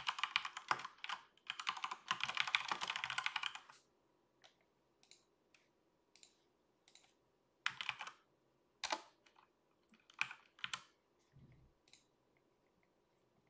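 Typing on a computer keyboard: a quick run of keystrokes for about four seconds, then scattered single clicks of keys and buttons.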